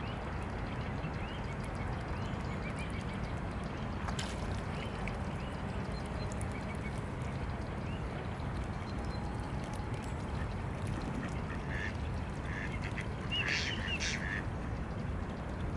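Mallard ducks quacking, with a run of louder quacks near the end, over a steady low background rumble.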